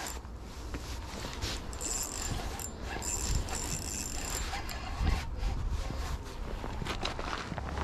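Spinning reel being cranked in short spells as a lure is retrieved, giving a thin high whine each time, over a steady low rumble of wind on the microphone.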